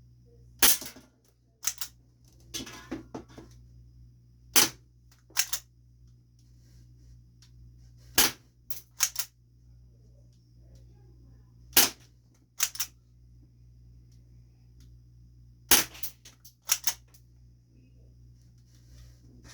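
Spring-powered airsoft pistol firing 0.12 g BBs: a sharp snap every few seconds, some coming in close pairs or quick clusters, over a low steady hum.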